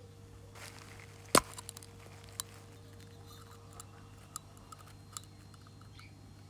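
One sharp tap about a second and a half in, then scattered light clicks, over a steady low hum.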